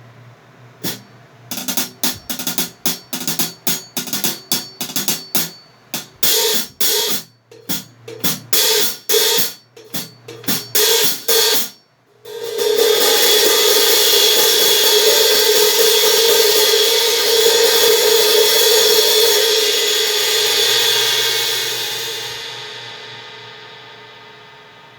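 Heartbeat Classic series 16-inch hi-hat cymbals, mounted with the top cymbal underneath and the bottom cymbal on top, played as a string of crisp strikes and short open barks. After that comes a long open wash that holds steady and then fades out near the end.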